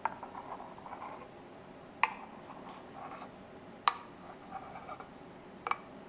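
Steamed milk being poured from a stainless steel pitcher into a ceramic cup during latte art: soft pouring and scraping sounds broken by four sharp clicks about two seconds apart.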